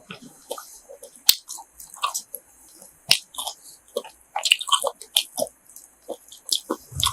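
A person biting and chewing grilled pork intestine, with irregular sharp clicks and small smacks of teeth and mouth.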